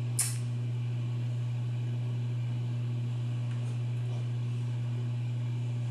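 A steady low hum, with one brief soft noise just after the start.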